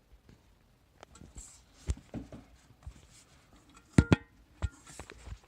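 Handling noises from a small electronic safe being put back together: scattered knocks and rustles. About four seconds in there is a sharp double clack with a brief metallic ring.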